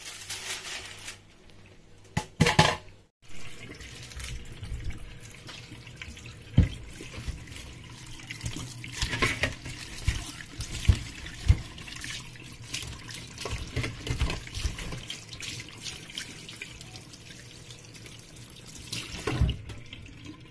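Tap water running into a stainless steel sink while a whole pineapple is rubbed and turned under it, with a few sharp knocks. Before that, in the first few seconds, aluminium foil crinkles as it is pressed over a pot of rice.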